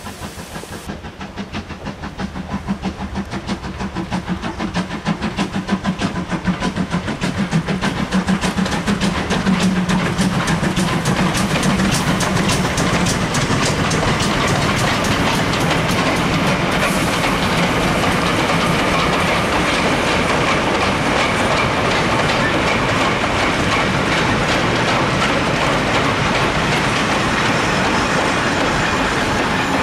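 Steam tank locomotive hauling a goods train of short-wheelbase wagons past, growing louder over the first ten seconds as it approaches. This is followed by a steady rapid clickety-clack of the wagon wheels over the rail joints as the wagons and brake van roll by.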